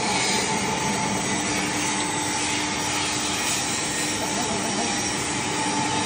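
Animal-feed pellet mill running under load as mash is fed into its hopper, a steady mechanical drone with a constant whine.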